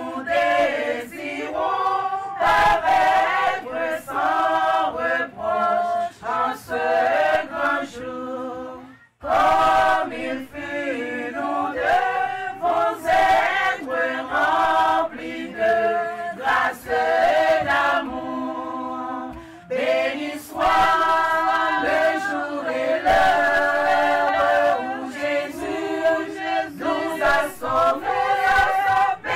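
A group of voices singing a gospel hymn together, with a short pause about nine seconds in.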